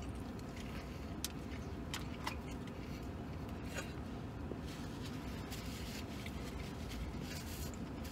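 A man chewing a mouthful of sandwich, with a few faint mouth clicks and a napkin rustling, over a steady low hum in a truck cab.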